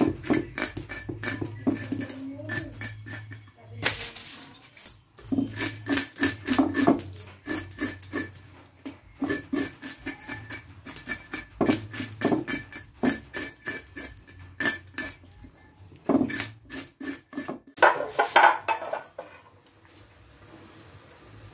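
Knife scaling and cleaning tilapia on a wooden chopping board: bursts of rapid scraping strokes and knocks of the blade and fish against the board, with a dense flurry near the end.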